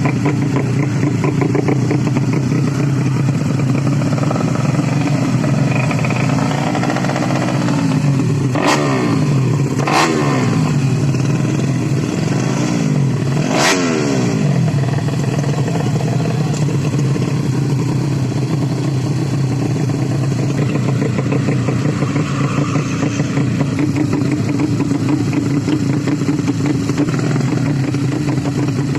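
Engines of 130 cc underbone racing motorcycles running hard throughout, with several bikes passing close by about a third of the way in, their pitch sweeping up and then down as they go past.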